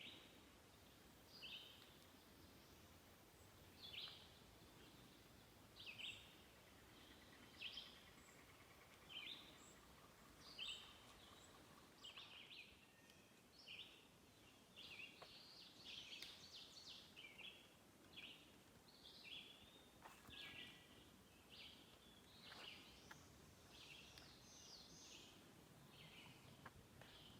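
Faint birdsong: one bird repeats a short phrase about every one and a half to two seconds, and after about twelve seconds several birds sing over one another.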